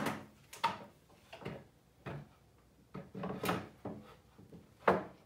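Jessem Mast-R-Lift II router lift, with its router motor, being set down into a router table's insert opening: a string of light knocks and scrapes as the plate meets the table, with a sharper clunk near the end.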